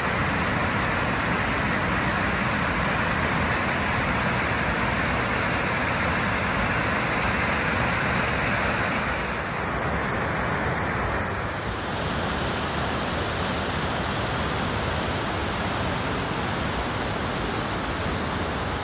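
Steady rushing of Myrtle Falls, a waterfall cascading down a narrow rock gorge. Its upper hiss softens a little about ten seconds in.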